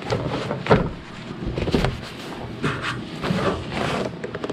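Irregular knocks, clicks and rustling from hard parts and a bag being handled.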